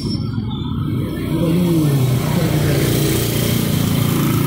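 Small motorcycle engine of a mototaxi (motorcycle rickshaw) running close by as it passes, a little louder from about a second in.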